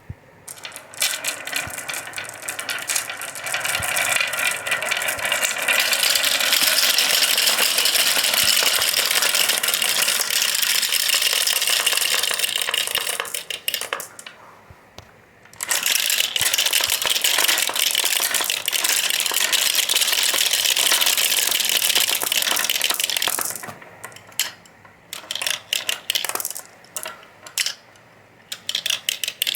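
Many marbles rolling and clattering down a HABA marble run in a dense, continuous rattle of clicks. It stops for about a second and a half midway, starts again, and thins to scattered clicks of a few marbles near the end.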